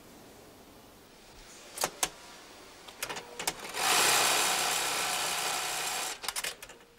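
Industrial sewing machine running steadily for about two and a half seconds as it stitches fabric, starting a little before the middle and stopping abruptly. A few light clicks and knocks of handling come before and after it.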